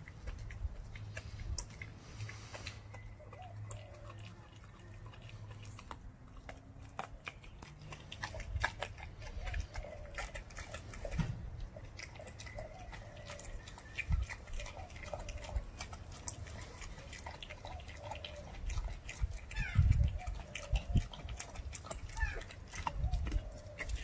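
A German shepherd puppy chewing a raw chicken quarter, the bones crunching and cracking in irregular sharp clicks. A few dull low thumps come in between, the loudest near the end.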